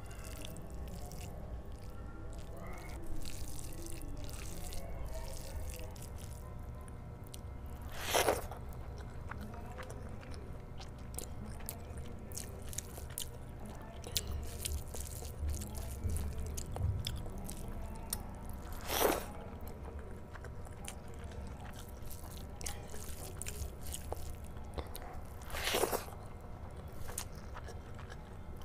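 Close-miked eating: a hand squishing and mixing curry-soaked rice, then chewing with wet mouth clicks throughout. Three short, louder bursts stand out about eight, nineteen and twenty-six seconds in.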